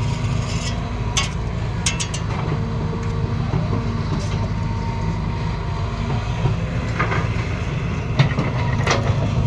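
Excavator engine running steadily, with a few sharp metallic knocks about a second in, around two seconds in, and again near the end.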